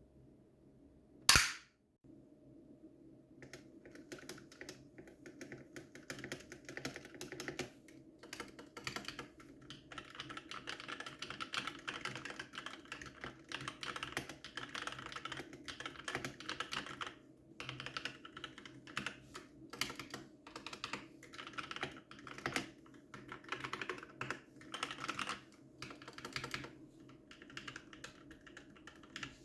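A single loud sharp knock about a second in, then, from about three seconds in, rapid irregular key clicks of someone typing on an ASUS ROG Strix Scope NX mechanical keyboard with NX Red linear switches.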